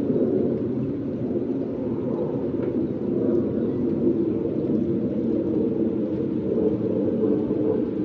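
Steady low rumbling noise with no separate events.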